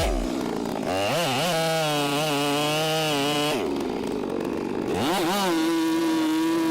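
Two-stroke chainsaw engine revving up and running at high speed. It drops off about three and a half seconds in, then revs up again and runs steady.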